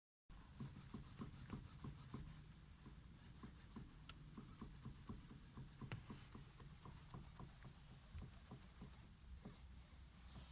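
Ford Mondeo Mk4 steering knocking and creaking as the steering wheel is turned toward full lock: a steady run of faint, irregular clicks and knocks, several a second. The sound is the sign of a steering fault.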